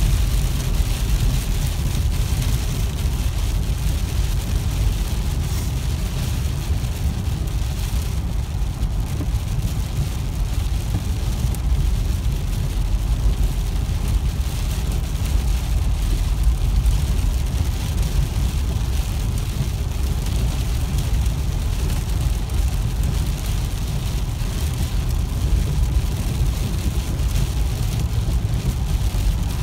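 Steady low rumble of road and wind noise inside a car cabin at highway speed, with rain on the windshield and roof adding a fine patter over it.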